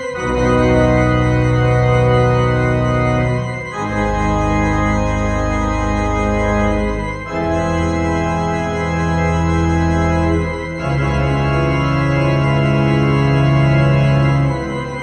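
Church organ playing four slow, sustained chords with a deep bass, each held about three and a half seconds before moving to the next.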